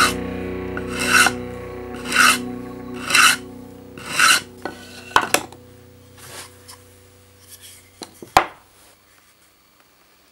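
Wood being sanded on a sandpaper-covered board in five strokes about a second apart. Then come a few light clicks and a sharp wooden knock about eight seconds in. Background music fades out during the strokes.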